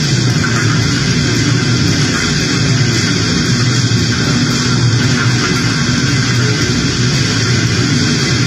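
Harsh noise music: a loud, steady wall of distorted noise with a low rumble underneath, unchanging throughout.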